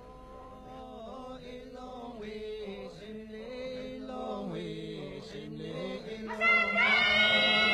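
Slow, chant-like singing on long held notes that slide between pitches, growing gradually louder. About six and a half seconds in, a higher, louder voice comes in.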